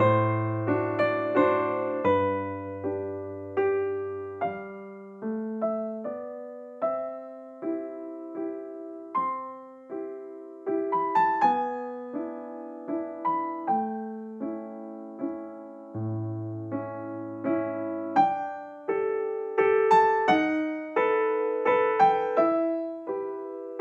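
Background piano music: single notes and chords struck about once or twice a second, each fading away, over occasional low bass notes.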